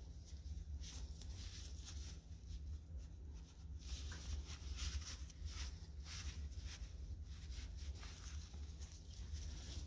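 Paper towel rustling and rubbing under a nitrile-gloved hand as the etched axe head is wiped down, in a run of short soft scrubbing strokes that get busier about halfway through. A steady low hum sits underneath.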